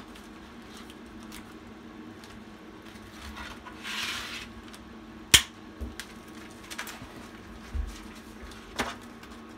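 Clear plastic zip envelopes being handled and pulled out of a ring binder: scattered clicks and snaps from the binder's metal rings and plastic, a rustle of plastic about four seconds in, and one sharp snap, the loudest, about five seconds in.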